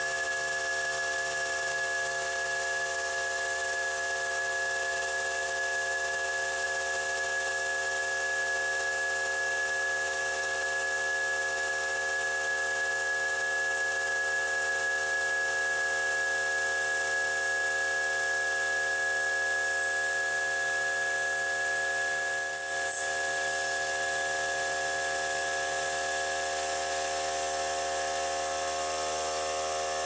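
Milling machine spindle running while an end mill cuts aluminium, a steady whine of several tones over the hiss of an air-blast mist coolant nozzle. A brief falling high whistle comes about two-thirds of the way through.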